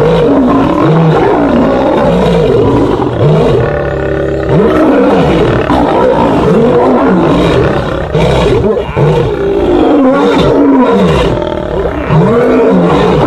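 Lions snarling and roaring in a fight, a male and lionesses calling over one another in many overlapping calls that rise and fall without a break.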